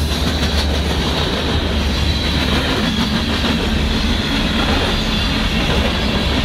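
Freight train passing close at speed: a trailing BNSF diesel locomotive's engine drone, heaviest in the first two or three seconds, gives way to the steady sound of covered hopper cars' wheels rolling over the rails.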